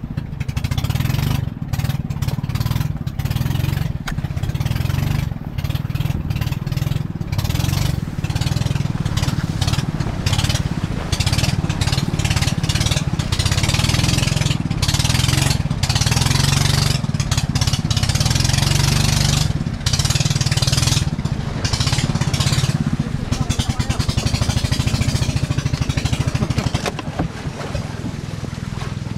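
Small boat's engine running steadily with a low, even drone, with a rushing hiss that swells and fades over it.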